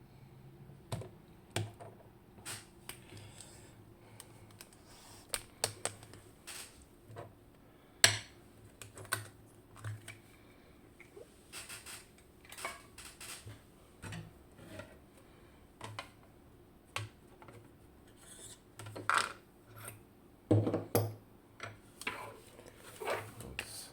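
Irregular light metallic clicks and taps from handling an Abloy Exec disc-detainer lock and its tools, with a denser run of louder knocks about three quarters of the way through.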